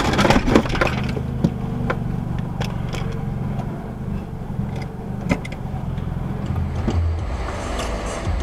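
Car driving noise heard from inside a car: a steady low engine and road rumble. A few clattering knocks come in the first second, then scattered light clicks.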